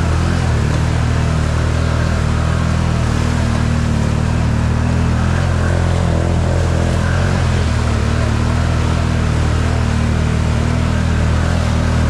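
An off-road vehicle's engine running steadily at an even speed, loud and close, with a noisy hiss over it.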